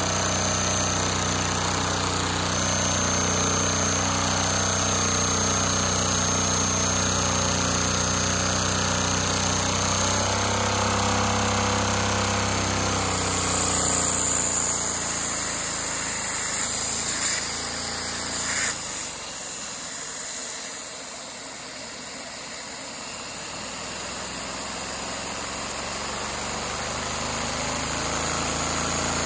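LEGO V-twin vacuum engine running at high revs, a steady machine sound from its spinning flywheel and working cylinders. About two-thirds of the way through it drops quieter for a few seconds, then builds back up.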